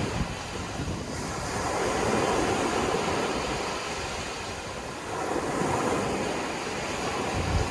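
Sea waves breaking in surf, a steady wash that swells and eases several times as successive waves come in.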